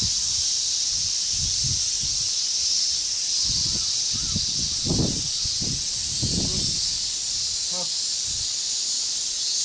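Steady high-pitched hiss of an insect chorus across the field, with soft low thumps and rustles and a single short call about eight seconds in.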